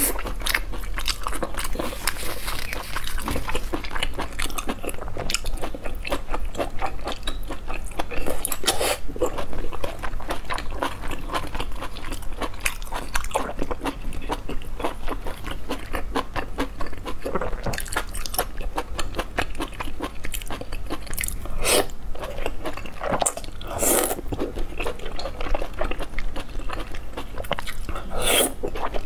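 Close-miked chewing and biting of soft, chewy cooked intestines, with wet mouth clicks throughout. Several louder slurps come through it as long strips are sucked in from the chopsticks.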